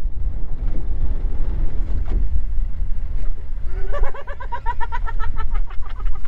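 Steady low rumble of a fishing boat and wind on the microphone. A fast, high-pitched cackle of about six or seven pulses a second comes in after a little over three seconds and stops just before the end.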